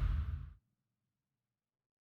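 The tail of a loud sound-design hit from a Kontakt sample library, dying away within about half a second and then cut to complete digital silence.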